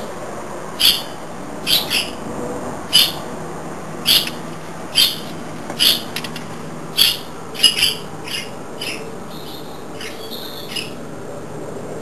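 A bird chirping over and over, short high calls about once a second, some in quick pairs, growing fainter after about eight seconds.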